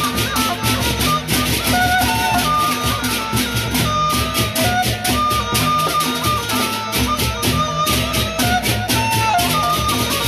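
Sasak gendang beleq ensemble playing: a dense, fast clashing of hand cymbals (ceng-ceng) over the beat of large barrel drums, with a high wavering melody line on top.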